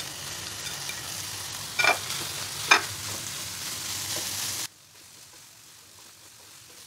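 Minced meat, onion and diced bell peppers sizzling in a non-stick frying pan as they are stirred with a plastic spatula, with two sharp knocks of the spatula about two and three seconds in. A little past four and a half seconds the sizzle drops suddenly to a much softer hiss.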